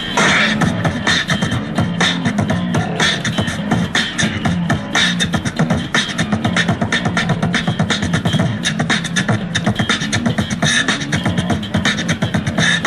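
Beatboxing into a handheld microphone, amplified through a small portable speaker: a rapid, steady beat of sharp vocal percussion. An electric bass guitar plays low notes along with it.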